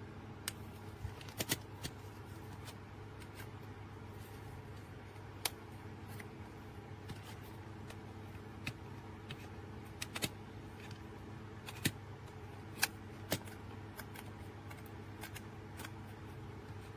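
Irregular sharp clicks and small knocks, about a dozen, the loudest about a second and a half in and twice near twelve and thirteen seconds. They sit over a steady low electrical hum.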